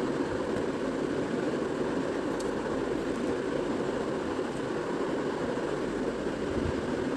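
Steady low background hum that does not change, with a few faint ticks.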